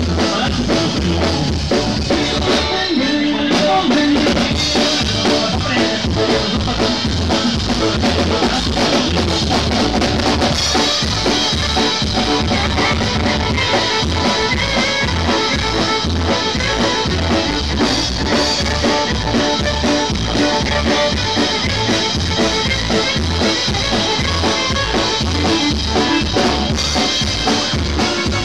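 Live dance band playing through a PA, the drum kit keeping a steady beat under the rest of the band.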